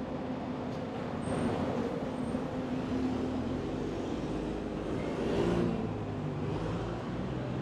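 Road traffic: motor vehicle engines running, with one vehicle passing close and loudest about five and a half seconds in.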